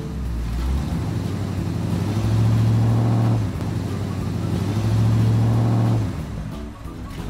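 Vehicle engine sound, a low steady hum that swells louder twice, each time for about a second.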